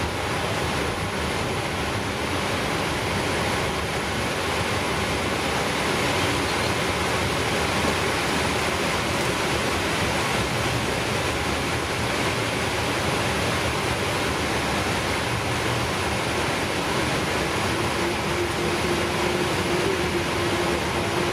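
Steady rushing flight-deck noise of a Boeing 777-300ER taxiing, from its engines at taxi power and the cockpit air-conditioning airflow. A faint steady hum joins in for the last few seconds.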